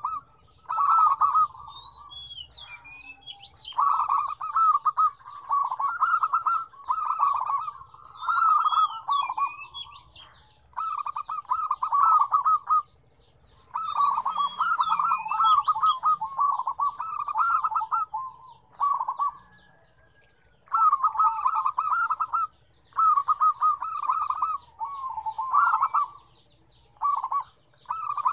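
Several zebra doves (perkutut) cooing, their phrases of rapid, stuttering notes overlapping and repeating with short gaps between. Higher chirps come in twice, briefly.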